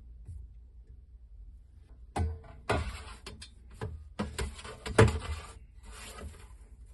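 Groceries and storage containers being handled: a run of rustles, rubs and light knocks starting about two seconds in, the sharpest knock about five seconds in, settling again a little after six seconds.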